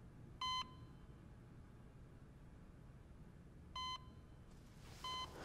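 Heart monitor beeping: three short electronic beeps, the first two about three seconds apart and the third coming just over a second after the second.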